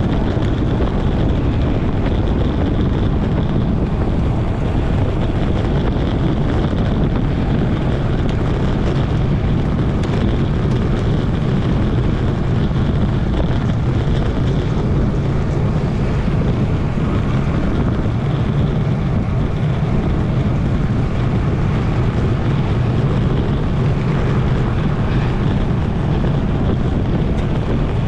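Steady wind rush on a bicycle-mounted camera's microphone while riding at about 22 to 31 mph, loudest in the low end.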